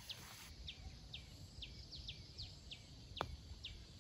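A bird's short, high, downward-sliding chirps, repeated about two or three times a second over a faint low rumble, with one sharp click a little after three seconds in.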